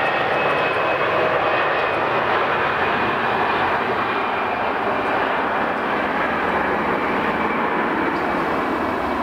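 The Airbus A320-211's twin CFM56 turbofan engines at takeoff power during the takeoff roll: a steady jet roar with a faint high whine, easing slightly as the airliner moves away.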